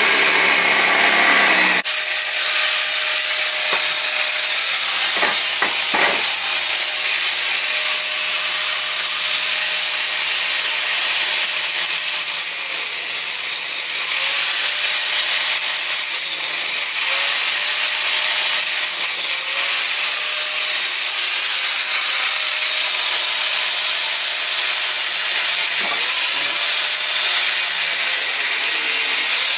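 Angle grinder working 5160 spring steel: a steady high-pitched motor whine over a loud grinding hiss, the whine dipping and recovering several times as the disc is pressed into the steel.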